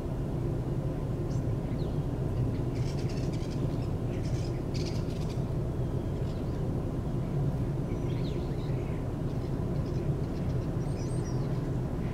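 Steady low rumble of distant traffic, with faint bird chirps now and then.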